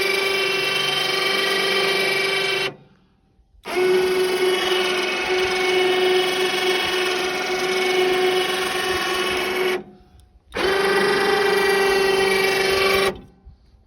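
Small electric winch motor running under load with a steady whine, winding its cable to raise the sawmill head. It stops and restarts twice, about 3 and 10 seconds in, and stops again near the end.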